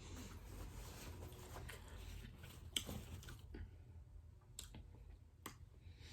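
Quiet, close-up chewing of seafood-boil food, with a few sharp clicks, the loudest about three seconds in.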